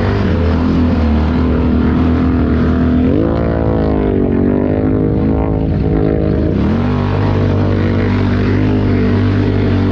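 ATV V-twin engine, the rider's Can-Am Renegade 1000 XMR, running under load. About three seconds in it revs up and its pitch rises and falls for a few seconds, then it eases back to a lower, steadier pace.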